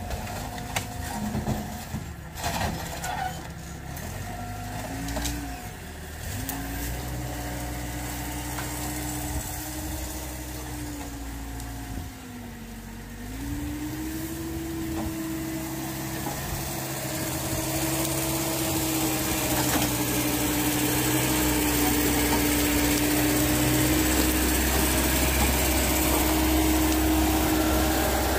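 Genie GTH-5519 telehandler's diesel engine running under load while carrying a car body on its forks. Its pitch dips and comes back up several times as the throttle changes, then holds steady and gets louder in the second half as the machine comes close. A few knocks and clunks in the first few seconds.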